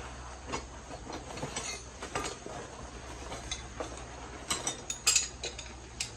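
Metal parts and tools clinking and tapping in irregular strokes, with a quick cluster of sharper clinks about five seconds in, over a steady insect chirring.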